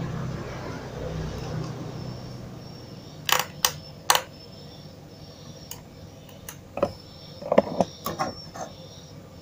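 Light, sharp clicks and taps in small clusters as a soldering iron works over the joints of a TV circuit board being resoldered. A low rumble fades out over the first two seconds.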